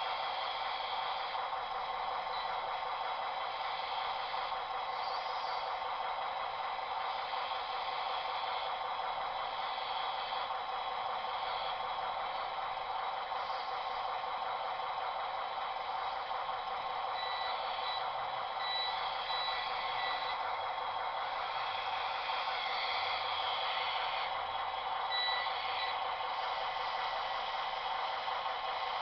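Short high electronic reversing beeps, about two a second, from a model forklift's sound unit, sounding for a few seconds past the middle and again briefly near the end, over a steady hissing hum.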